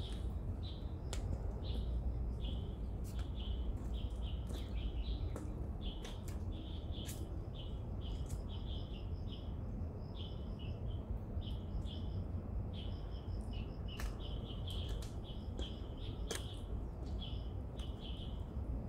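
Small birds chirping in a steady run of short, high notes, about two or three a second, with a few sharp ticks, over a constant low rumble.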